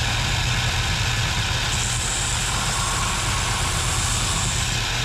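Bench belt sander running steadily while the edge of a plywood panel is pressed against the belt to sand a curve into it; a higher hiss joins the motor hum from about two seconds in until near the end.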